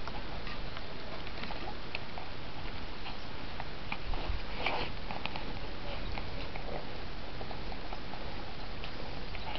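Belgian Tervuren puppies scuffling and sniffing close to the microphone: small scattered clicks and scratches over a steady hiss, with a brief louder rustle about four and a half seconds in.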